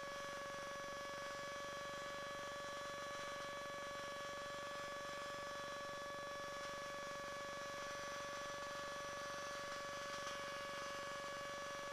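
Steady electrical hum in the recording, one held tone with a couple of fainter higher ones above it over a faint hiss, with no engine or wind sound behind it.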